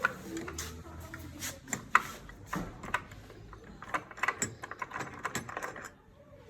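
Irregular run of sharp clicks and light knocks, as of hand tools and parts being handled, with the loudest knock about two seconds in and the clicking dying away near the end.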